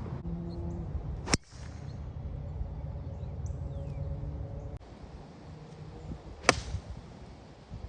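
Two golf shots, each a sharp crack of the club striking the ball, about five seconds apart, over a steady low outdoor rumble.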